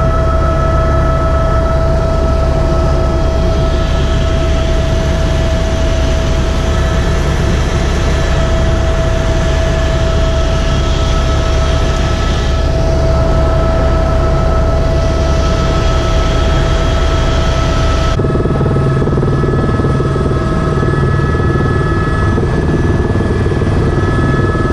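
AS350 A-Star helicopter in flight, heard from inside the cabin: steady turbine whine over a low rotor drone. The sound changes abruptly about three-quarters of the way through, turning duller with a heavier low drone.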